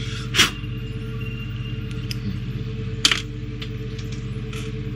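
Two sharp clacks about two and a half seconds apart as a hand tool and plastic model parts are handled and set down on a workbench, over a steady low hum.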